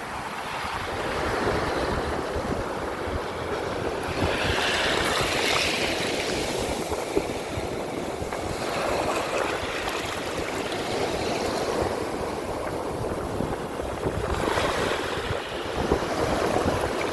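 Ocean surf washing in continuously, with waves swelling louder in surges a few times, and wind gusting across the microphone underneath.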